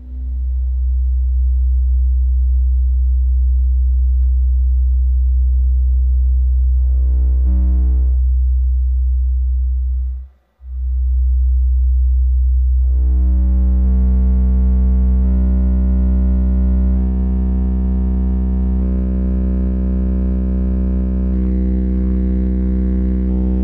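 A 63 Hz sine test tone played very loud through a DD Audio Redline 610e 10-inch subwoofer mounted in a toilet used as its enclosure, heard inside the car for an SPL measurement. The tone drops out briefly about ten seconds in, then comes back harsher, with stronger overtones above it.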